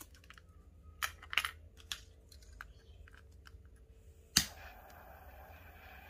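Scissors snipping paracord a few times, then a jet torch lighter clicks alight about four and a half seconds in and its flame hisses steadily.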